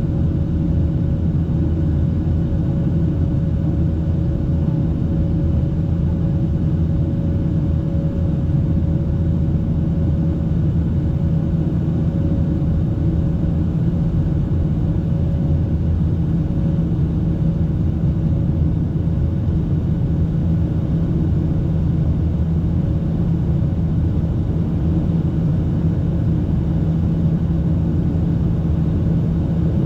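Boeing 737-800's CFM56-7B turbofan engines at climb power, heard inside the cabin: a steady, deep rumble. A faint steady hum rides on it and fades out about halfway through.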